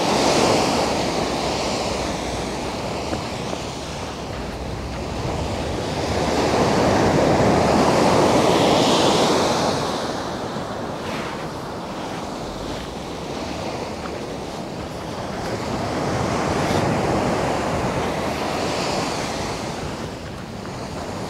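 Sea waves surging and washing on the shore, swelling louder twice, with wind buffeting the microphone.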